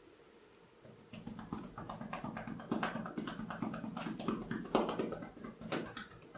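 Head and shoulder massage strokes: quick rubbing and patting on hair and skin that start about a second in, with a few sharper taps among them.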